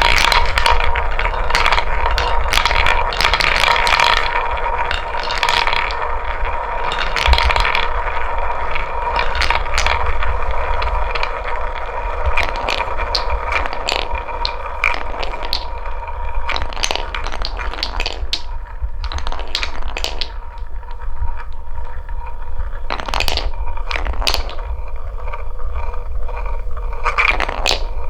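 Balls rolling down a wooden marble-run track: a continuous rolling rattle with many sharp clicks as they knock against the wood and each other.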